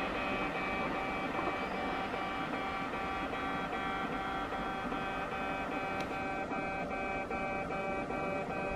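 Japanese railway level-crossing warning bell ringing, an electronic ding repeating steadily, signalling that a train is approaching or passing. A low rumble of rail noise runs underneath.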